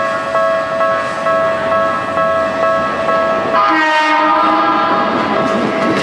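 Railway level-crossing warning bell ringing in a steady repeating rhythm. About three and a half seconds in, a train's horn sounds once for about a second, dipping slightly in pitch. Near the end, an approaching electric train starts to rumble and clatter on the rails.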